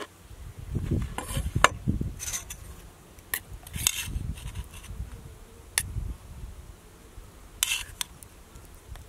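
A large knife sawing through a crusty loaf and clicking on a wooden cutting board, with a metal spoon clinking against a steel pot as dip is scooped out. There are several sharp clicks and a few short rasps over a low rumble.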